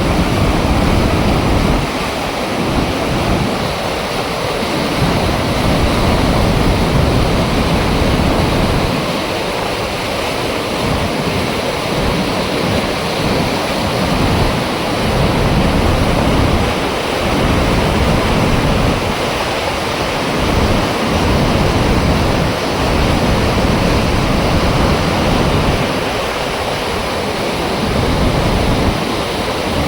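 Water rushing through an opened dam flap gate: a loud, steady rush, with a low rumble that swells and fades every few seconds.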